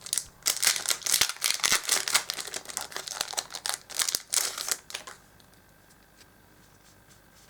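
Yu-Gi-Oh booster packs and cards being handled: rapid crinkling and clicking of foil wrappers and cards being flicked through, which stops about five seconds in.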